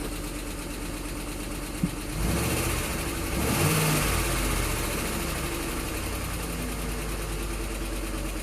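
2007 Ford Explorer's 4.6 Triton V8 running with a rapid clicking, which the owner takes for a failing cam phaser. About two seconds in, the engine note rises for a couple of seconds, then settles back to a steady idle.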